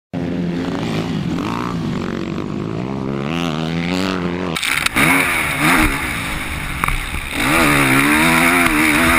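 Motocross bike engines revving up and down as riders accelerate and shift through the gears. About halfway through, the sound cuts to a louder, harsher close recording of one bike's engine from a helmet camera, with strong wind hiss over it.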